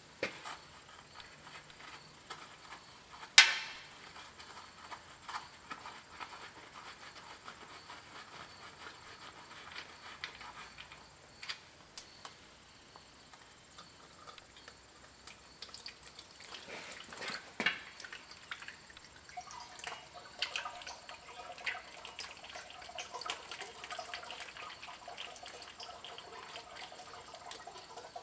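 Engine oil dripping and trickling from the drain plug hole into a drain pan, the oil being drained after an engine flush. A sharp click about three seconds in and scattered small taps, with the flow becoming steadier in the last third.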